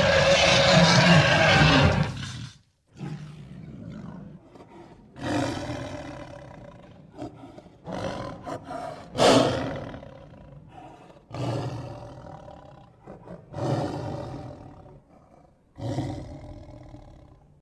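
Bear roaring: one long loud roar that cuts off about two and a half seconds in, then about six shorter roars, each starting sharply and fading away.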